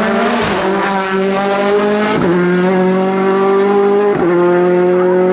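Race car engine at full throttle accelerating uphill, its pitch climbing steadily and dropping sharply at two upshifts, about two and four seconds in.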